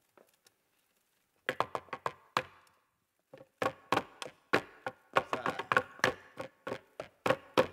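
Hands rapping a flamenco soleá rhythm on a small wooden table: sharp knocks in quick, accented clusters. A few strokes come about a second and a half in, then after a short pause a continuous run of knocks starts near the middle.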